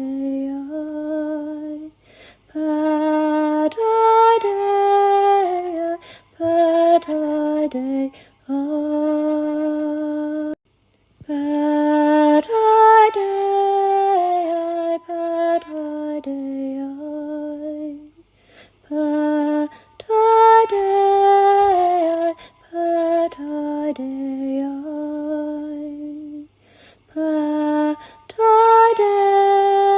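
A solo female voice sings unaccompanied, slow and lullaby-like, holding long notes in phrases broken by short pauses. The same melodic phrase comes round again about every eight or nine seconds.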